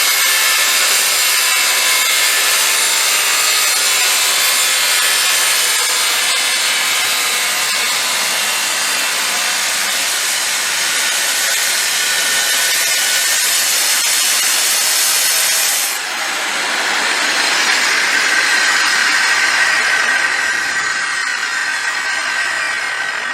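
Angle grinder running under load, a continuous high whine over a grinding hiss. About two-thirds of the way through it dips briefly and resumes with a stronger, lower whine.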